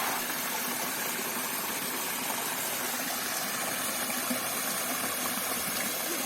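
Steady noise of flowing river water.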